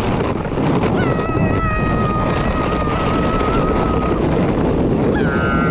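Sled sliding fast down an icy snow slope, a steady rushing of snow and wind on the GoPro microphone. Over it, a long high-pitched wordless squeal from the rider holds from about a second in until past four seconds, and another starts near the end.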